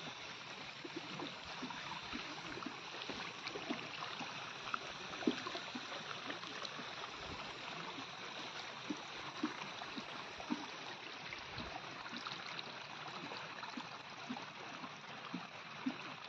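Water running and trickling steadily, like irrigation water flowing through flooded terraced rice paddies, with small scattered ticks.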